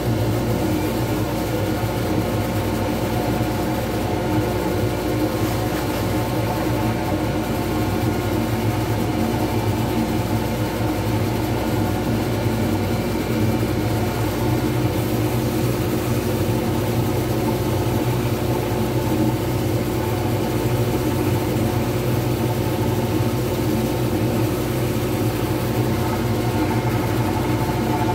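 Wood lathe running steadily with a constant motor hum, spinning a resin pen blank with nothing cutting or touching it.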